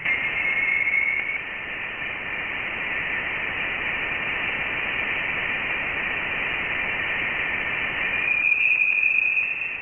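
Voyager 1 plasma-wave data from interstellar space, converted to sound: a steady hiss with a thin high tone running through it, growing a little louder near the end.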